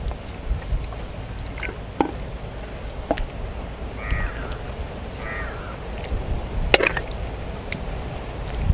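A steel ladle clinks sharply against a steel bowl and pot a few times as curry is scooped, the loudest clink about seven seconds in. A crow caws twice, about four and five seconds in, over a low wind rumble on the microphone.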